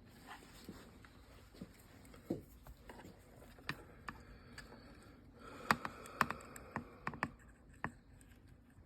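Scattered light clicks and taps of small tools and wire leads being handled while soldering onto a circuit board, more frequent and sharper in the second half, with a faint hiss for a moment past the middle.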